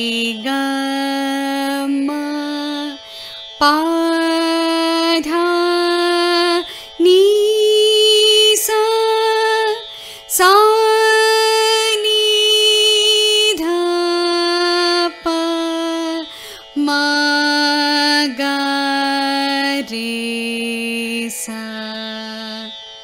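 A woman sings the Carnatic arohanam and avarohanam in swara syllables (sa ri ga ma…) at six kattai (A) pitch, climbing note by note to the upper sa about halfway through and stepping back down to the lower sa. A steady sruti drone sounds beneath the voice throughout.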